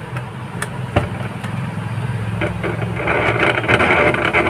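Bajaj mixer grinder's motor running on a series-connected supply, with a steady hum and a few sharp clicks, then a harsh rattling noise coming in about three seconds in. The excessive running noise is one of the grinder's faults under repair.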